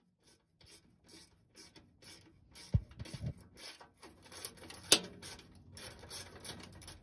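Quarter-inch drive ratchet with a 10 mm socket clicking in quick strokes as it backs out a bolt, with two louder knocks about three and five seconds in.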